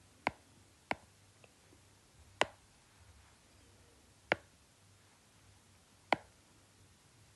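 Stylus tip tapping on a tablet's glass screen: five sharp, separate clicks about one to two seconds apart.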